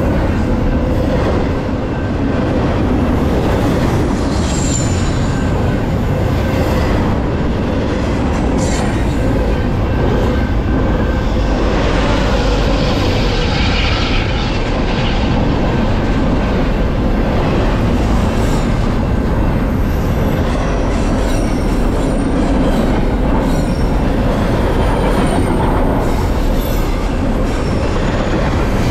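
Double-stack intermodal freight train passing at close range: continuous rumble of the cars' wheels rolling over the rails, with a few brief, high wheel squeals now and then, mostly in the second half.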